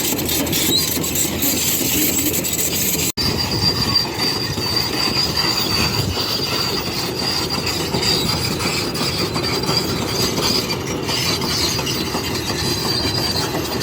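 Excavator working: a steady mechanical din with a constant high whine and metallic squealing, which cuts out for an instant about three seconds in.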